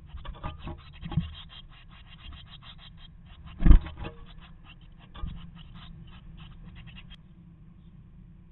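Scratching and rustling inside a wooden nest box as an adult tit shuffles on the nest of moss and hair among its chicks: a dense run of quick scratchy ticks, with one loud thump just under four seconds in. The rustling stops about seven seconds in, leaving only a faint low hum.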